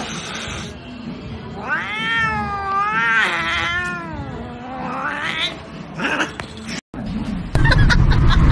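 Grey British Shorthair cat yowling at a hairless Sphynx cat's paw pushed against it: one long, wavering call, then a shorter rising one. These are the cat's sounds of annoyance and warning. Near the end the sound changes suddenly to louder, busier noise.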